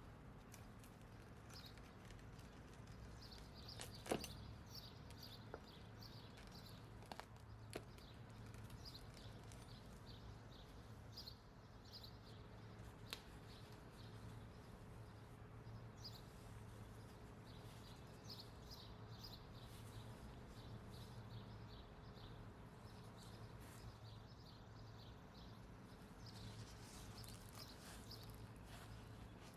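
Near silence: quiet room tone with a low hum, faint repeated high chirps in short runs, and a few soft clicks, the sharpest about four seconds in.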